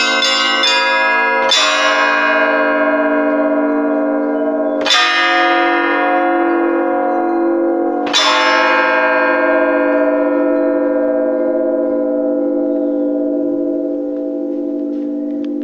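Russian Orthodox church bells: a quick peal of several bells stops within the first second, then three single strokes come about three seconds apart. After the last stroke the bells ring on and slowly fade.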